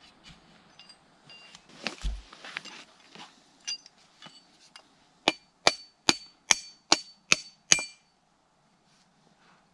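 Seven sharp metallic taps, about two and a half a second, as the butt of a hatchet strikes an old steel sliding door bolt resting on a stone, working at its peened-over rivet; each tap rings briefly. Before them come a few lighter knocks and a dull thump.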